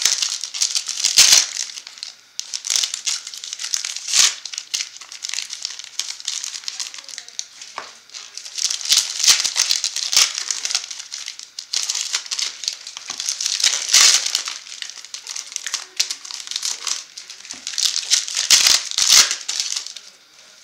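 Plastic trading-card pack wrappers crinkling as they are handled, in repeated short rustling bursts.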